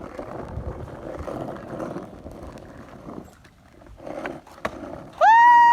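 Skateboard wheels rolling on wet pavement, then two sharp clacks of the board a few tenths of a second apart, then a loud, held "woo" shout that falls away in pitch.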